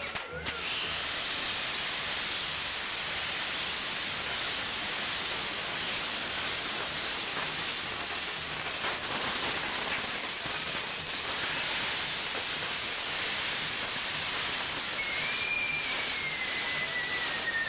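Spinning firework wheels on a pyrotechnic set piece burning: a steady, even hiss of spraying sparks with a few faint pops. A high whistle, slowly falling in pitch, starts near the end.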